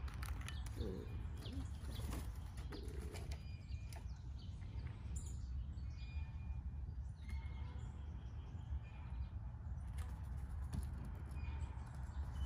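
Steller's jay picking peanuts from a glass bowl: sharp clicks of beak on nuts and glass for the first few seconds, then its wings flapping as it flies off. Faint short chirps of small birds over a steady low rumble.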